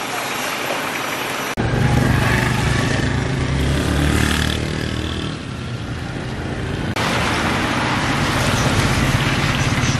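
Street traffic: motor vehicle engines running close by over a steady hiss of tyres on a wet road. The sound changes abruptly twice.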